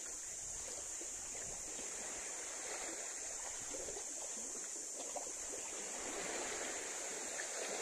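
Shallow seawater lapping and trickling at the shoreline, a steady, even wash with a constant high hiss over it.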